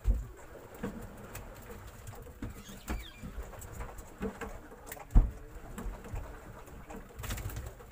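Irregular knocks and thumps from handling gear on a small fishing boat as lines of small fish are hauled aboard, with two louder low thumps, one at the very start and one about five seconds in.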